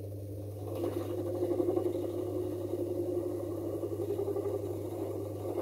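Homemade woodworking lathe running with a steady motor hum while a hand-held graver cuts a groove into a spinning aluminium billet; the cutting noise comes in about a second in and carries on steadily.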